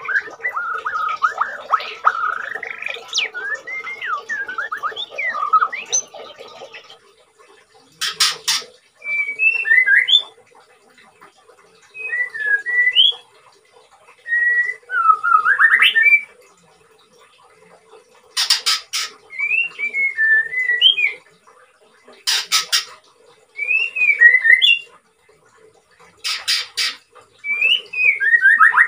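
White-rumped shama (murai batu) singing while in moult. It first gives a dense run of whistled and chattering notes for about seven seconds, then separate short phrases of rising and falling whistles every few seconds, with brief harsh rattles between them.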